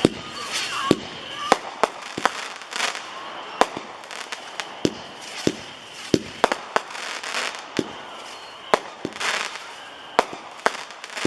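A 16-shot 200-gram consumer fireworks repeater cake, Dragon's Breath, firing: an irregular string of sharp launch and burst reports, with crackling bursts every few seconds.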